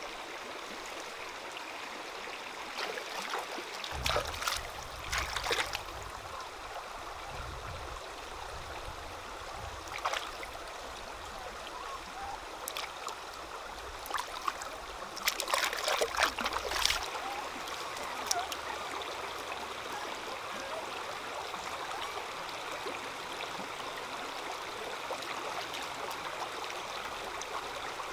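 Shallow stream running steadily over rocks, with splashes of water as a puppy is washed by hand: a few splashes about four and five seconds in, one near ten seconds, and a louder flurry around fifteen to seventeen seconds.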